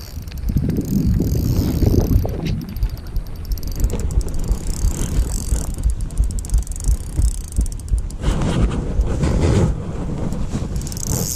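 Wind buffeting the microphone in an uneven low rumble, with several spells of fine, rapid ticking over it.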